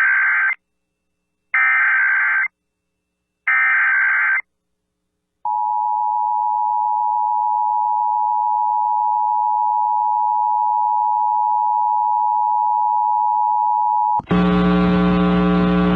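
Emergency Alert System signal for an AMBER Alert (child abduction emergency) test. Three one-second bursts of SAME digital header data come first, then a short gap. About five seconds in, the steady two-tone EAS attention signal starts and is held for about eight and a half seconds. It cuts off near the end and a steady buzzy tone with many overtones takes over.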